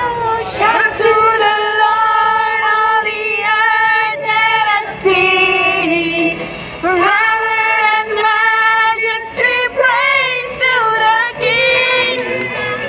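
A group of women singing a Christian worship song together into handheld microphones, amplified through a portable speaker, with long held notes.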